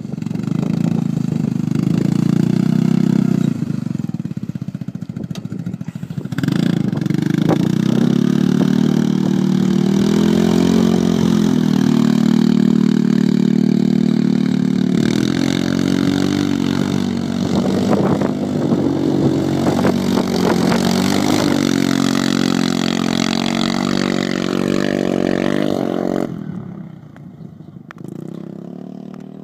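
2006 Yamaha Rhino 450 UTV's single-cylinder four-stroke engine, fitted with an aftermarket DG slip-on muffler, revving hard under load as the vehicle is driven on sand. The pitch rises and falls over and over with the throttle. About 26 seconds in the sound drops away to a much fainter level.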